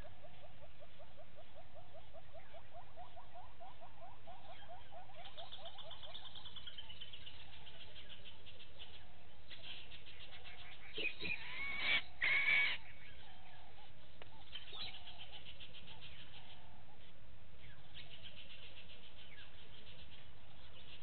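Outdoor bush ambience of animal calls over a steady background hiss. A rapid pulsed trill rises slightly in pitch over the first few seconds, high chattering trills come on and off, and a louder short cluster of calls sounds about eleven seconds in.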